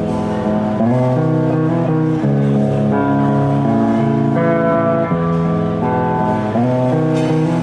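Live rock band playing the instrumental intro of a song, led by guitar chords that are held and change about once a second, with no singing.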